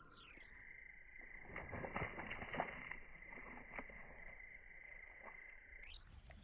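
Faint outdoor background sound, heavily muffled by a filter effect whose cut-off sweeps down at the start and back up near the end. A few soft clicks fall in the middle.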